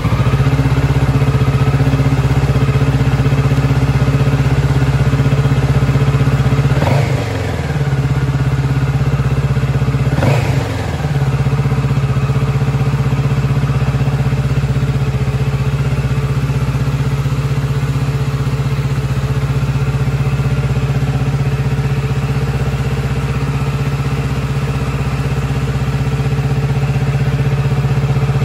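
Kawasaki Z650RS's 649 cc parallel-twin engine idling steadily just after being started. Its note wavers briefly twice, about seven and ten seconds in.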